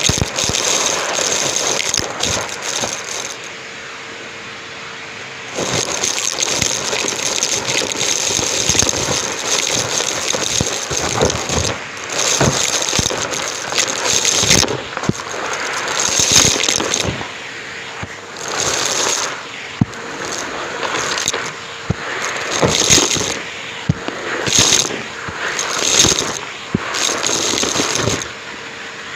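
Numatic James canister vacuum cleaner running close to the microphone, its motor giving a steady hum under loud rushing suction. Debris rattles and crackles through it, and the sound swells and dips over and over, with a quieter spell about four seconds in.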